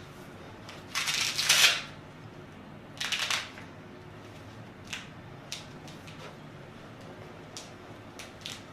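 Rustling of a patient shifting on a chiropractic treatment table and of hands and clothing being set in place: two bursts, the first and louder one about a second long, a shorter one about three seconds in, then a few faint light clicks.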